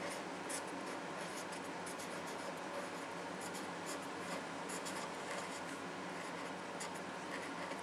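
Pen writing, short scratchy strokes coming irregularly over a steady hiss.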